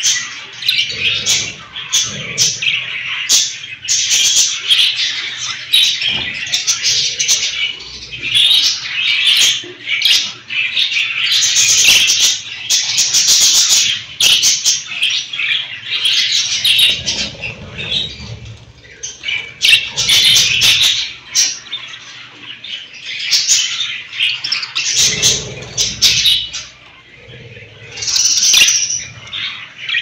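A flock of caged budgerigars chattering, a dense, continuous stream of high chirps and warbles with only brief lulls.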